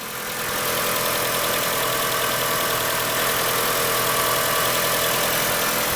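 Mitsubishi Galant VR-4 engine idling steadily.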